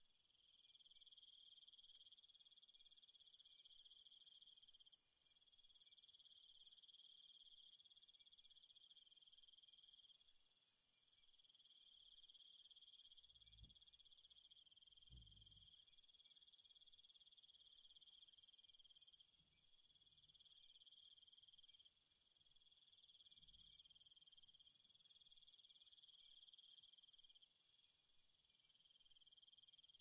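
Faint, steady chorus of crickets and other insects, several high shrill layers that swell and fade every few seconds.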